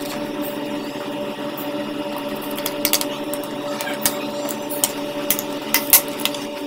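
Scattered small clicks and taps of plastic casing parts and a screwdriver being handled while a mini speaker's circuit board is fitted back into its case, thickest near the end, over a steady hum.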